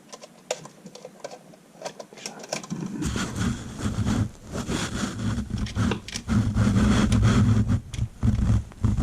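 Close handling noise from working a wire onto an outlet's terminal screw: a few light clicks, then from about three seconds in loud, irregular low rubbing and scraping with clicks.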